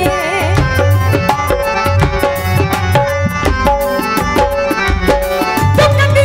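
Live Punjabi folk band's instrumental break: a hand drum plays a quick rhythm under a melody of held notes. The singer's voice comes back in near the end.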